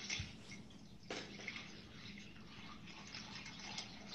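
Water poured from a glass pitcher into a glass bowl, a steady splashing trickle that starts afresh about a second in.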